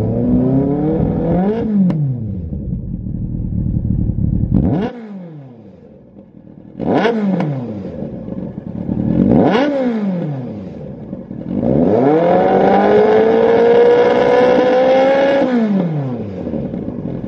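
Yamaha FZS1000's 998 cc inline-four engine revved through a Lextek XP13C aftermarket silencer. One rev rises and falls in the first two seconds, then come three sharp throttle blips about two and a half seconds apart. A longer rev is held for about three seconds before it drops back toward idle near the end.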